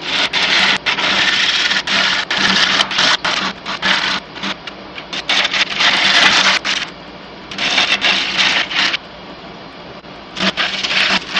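Wood lathe running with a gouge cutting the spinning bottom of a wooden bowl: a rough, scraping cutting noise that comes in spells with short breaks, over the lathe motor's steady hum.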